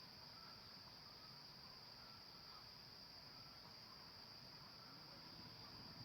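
Faint, steady, high-pitched drone of insects, with faint short chirps about once a second.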